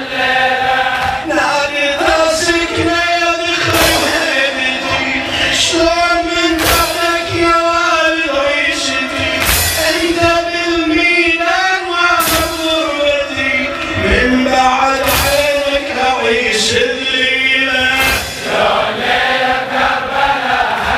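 Male voices chanting a Shia Muharram lament (latmiyya) in Arabic, the group singing together in chorus, with a sharp beat every couple of seconds.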